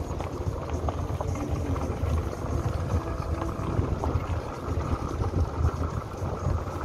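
Vehicle driving along a rough dirt track: a continuous, uneven low rumble with small knocks and rattles scattered through it.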